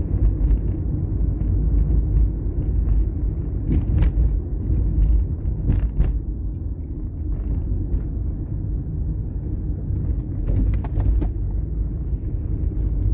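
Car driving on town roads, heard from inside the cabin: a steady low rumble of engine and road noise, with a few brief knocks about four and six seconds in and again near eleven seconds.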